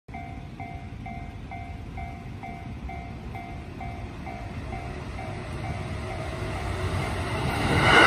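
Japanese level-crossing warning bell clanging about twice a second while a JR West 205-series electric train approaches, its rumble growing steadily louder until the train reaches the crossing at the end.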